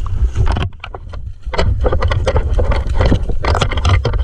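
Shallow river water splashing and sloshing close to the microphone, with a constant low rumble of wind and handling on the microphone. The splashing eases off briefly about a second in.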